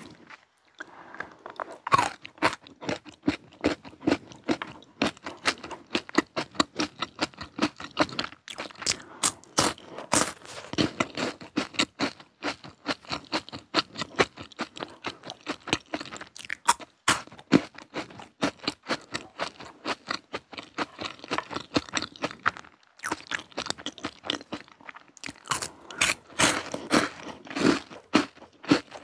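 Close-miked crunching and chewing of a chocolate-coated crunchy wafer bar: dense, crisp crackles bite after bite, starting about a second in.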